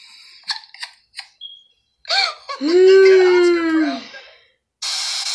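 A woman stifling laughter: a few short puffs of breath, then one long high-pitched squeal held in for about a second and a half, and a sharp hissing breath out near the end.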